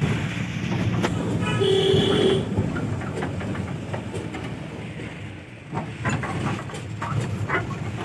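Steady engine and road noise heard from inside a moving vehicle's cabin on a winding mountain road, with a single short vehicle horn blast about one and a half seconds in.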